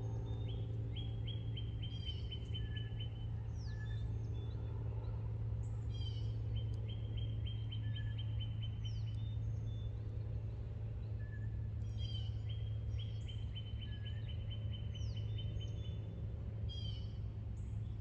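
A songbird repeating a trilled song, a run of evenly spaced notes at about three or four a second lasting two to three seconds, given about every six seconds. Other birds add short falling calls, over a steady low background hum.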